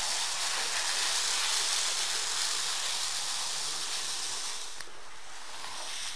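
Steady hiss of water spraying from a pressure-washer hose wand onto a foamed rug, easing off a little toward the end.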